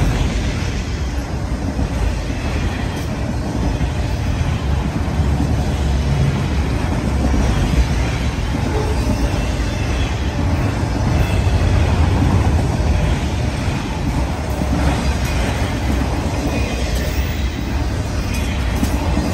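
A long freight train of autorack cars rolling past close by, a steady rumble of steel wheels on the rails.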